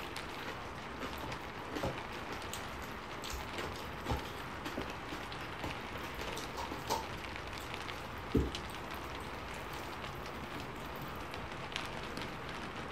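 Steady hiss of heavy rain, with scattered small clicks of food being handled and eaten by hand, and one low thump a little past the middle.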